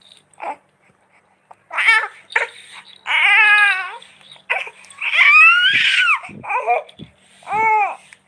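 Baby babbling: a few short sounds, then a series of long, high-pitched vocal calls, one rising and falling in pitch about five seconds in.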